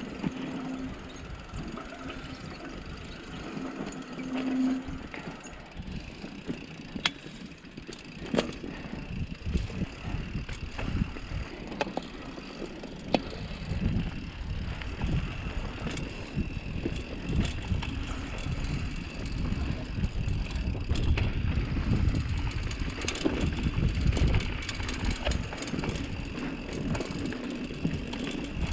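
Mountain bike riding down a loose, dusty dirt trail: tyres crunching over dirt and rock, with frequent sharp clicks and knocks from the bike rattling over bumps. The riding gets rougher and louder from about eight seconds in.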